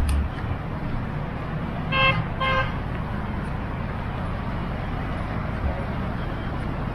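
A car horn beeps twice, two short toots about half a second apart, over a steady hum of road traffic.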